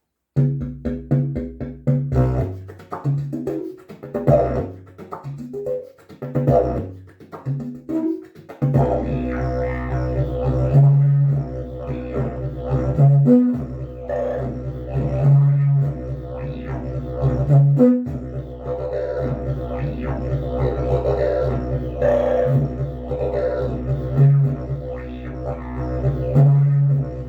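Agave travel didgeridoo in its fixed B-length setup with a wooden mouthpiece, played as a drone in B. For about the first eight seconds the drone is chopped into rhythmic pulses. After that it is held steady, with short accented higher toots every few seconds.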